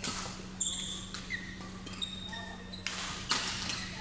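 Badminton doubles rally: several sharp racket smacks on the shuttlecock at uneven intervals, with short high squeaks of court shoes on the hall floor, over a steady low hum.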